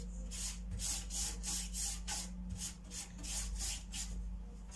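Pastry brush spreading melted butter over a sheet of phyllo pastry in a tray, a quick run of short brushing strokes, about four or five a second.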